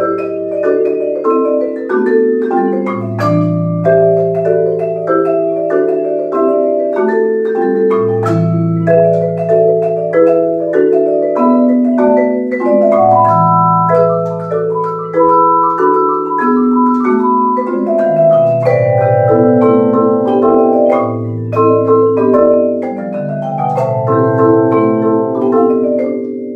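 Marimba and vibraphone playing a duet together: a steady stream of quick mallet notes over long, ringing low notes.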